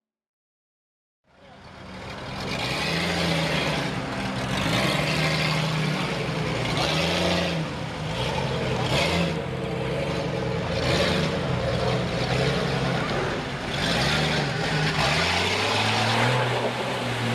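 Jeep Cherokee engine revving up and down as it drives through a mud pit, with mud and water splashing off the tyres. It fades in after about a second of silence, and near the end the engine settles to a lower, steadier note.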